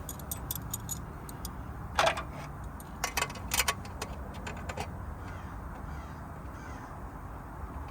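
Scattered metallic clinks and taps of tools and parts handled while working on the headers, with one louder clank about two seconds in and a quick run of ticks a second later, over a steady low hum.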